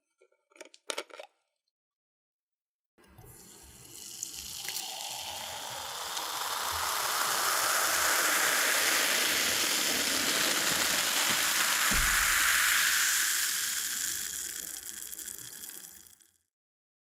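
Cola being poured, one continuous pour of splashing, fizzing liquid that swells over a few seconds, holds, then tapers off near the end. A few faint clicks come before the pour starts.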